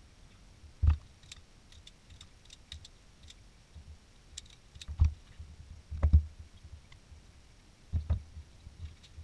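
Hands working on ATV wiring with pliers: scattered light clicks and handling rustles, broken by several short dull thumps, the first about a second in and two close together about six seconds in.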